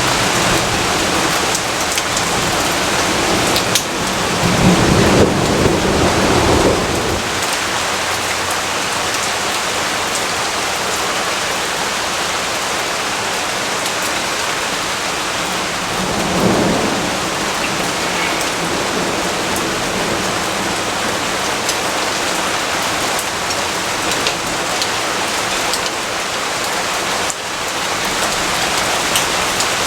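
Steady heavy rainfall with thunder rumbling twice: a longer roll about four to seven seconds in, and a shorter one around sixteen seconds in.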